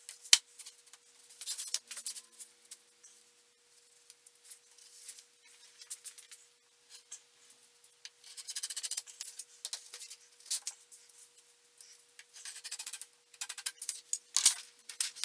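Irregular scraping and scratching strokes of a flat metal blade on the wooden cabinet top, with a sharp click about half a second in and another near the end. A faint steady hum runs underneath.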